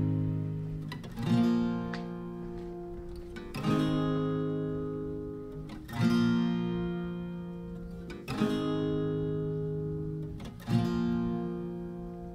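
Background music: slow acoustic guitar chords, a new chord struck about every two and a half seconds and left to ring and fade.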